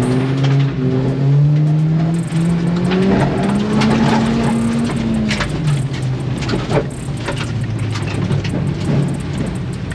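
Car engine under hard acceleration: its pitch climbs steadily for about five seconds, then drops suddenly as the revs fall, and it runs on at lower revs. Scattered short knocks and clatter sound through it.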